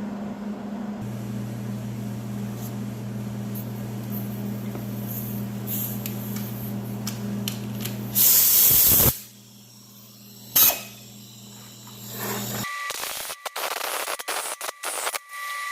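Steady low machine hum, then a loud burst of hiss lasting about a second, a single sharp click, and choppy on-and-off noise near the end.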